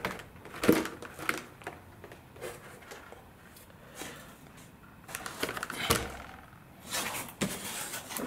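Handling noise: scattered light knocks, taps and rustles, irregularly spaced, as a composite sailplane wing panel is picked up and moved about on a foam workbench mat.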